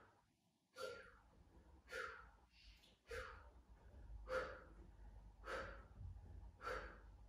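A woman's short, faint breaths out, about six of them at a steady pace of roughly one a second, in time with repeated prone back-extension lifts.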